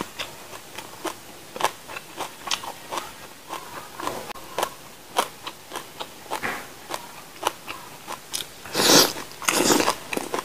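Close-miked chewing and crunching of food, with a steady run of crisp, wet mouth clicks about once or twice a second. About nine seconds in come two louder, longer rasping noises.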